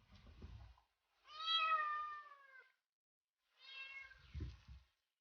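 A cat meowing: a long, loud meow about a second in that sags slightly in pitch, then a shorter meow a little after three and a half seconds, with low muffled rumbles in between.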